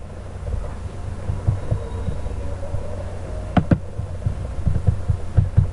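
Steady low electrical hum picked up by the microphone, with scattered soft low thumps. About three and a half seconds in come two quick, sharp computer mouse clicks.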